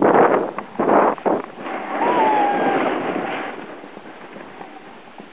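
Snowboard sliding and scraping over packed snow, with wind buffeting the handheld camera's microphone. There are a few louder surges in the first second and a half, then the sound dies away to a quiet hiss about three and a half seconds in.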